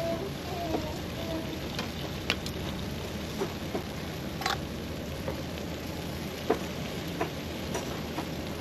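Food sizzling on a barbecue grill: a steady hiss with scattered sharp pops and crackles.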